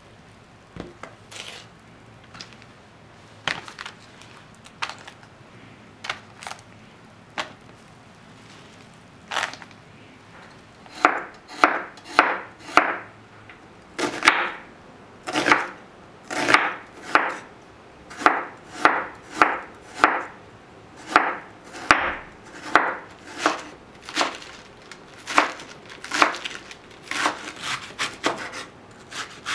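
Chef's knife slicing onion and cabbage on a wooden cutting board. A few scattered knocks come first, then from about ten seconds in a steady run of chopping strokes, about two a second.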